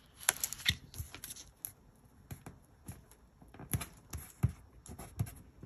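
Paper stickers being peeled and pressed onto a planner page: scattered light taps, clicks and paper rustles.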